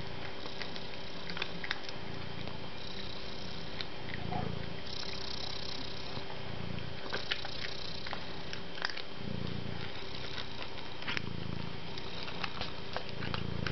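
Domestic cat purring in low pulses of about a second, recurring every two to three seconds, with scattered light clicks and rustles from its play with a toy on a string.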